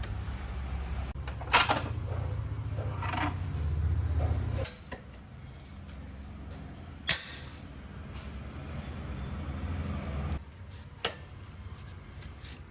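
A low motor hum that cuts off suddenly about four and a half seconds in, then runs again more quietly and stops near the end. Three sharp clicks or knocks fall over it.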